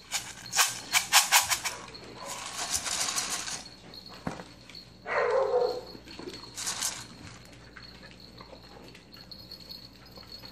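Puppies playing and wrestling on a wooden floor: a quick run of sharp clicks and scrabbles early on, then scuffling, with a short falling yelp about five seconds in.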